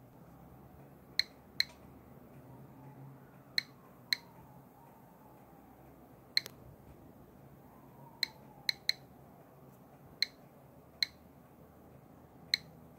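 GQ Geiger counter clicking at random, irregular intervals, about eleven short, high clicks, a few in quick pairs or triplets. Each click is one count of radiation detected from a uranium-238 metal sample held under mineral oil, which lets through gamma only.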